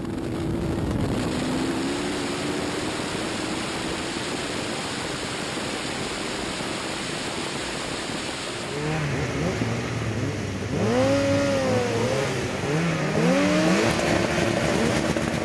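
Ariel Atom V8's V8 engine running hard under acceleration, heard from the cockpit, its steady pitch buried in a loud rush of wind and road noise. From about nine seconds in, engine revs sweep up and down several times.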